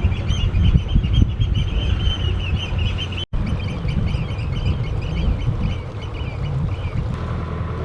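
Birds calling in rapid, repeated short cries over a boat engine's low, steady running.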